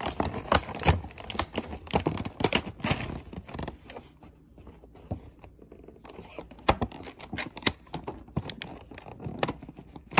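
Clear plastic blister pack and cardboard backing of a Hot Wheels Street Beasts package crinkling, cracking and tearing as it is pulled open by hand, in quick irregular crackles with a quieter stretch about four seconds in.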